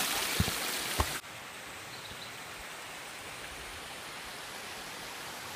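Two footsteps thud on a leaf-littered trail under a loud hiss. About a second in, the hiss cuts off and a quieter, even outdoor rushing noise takes over.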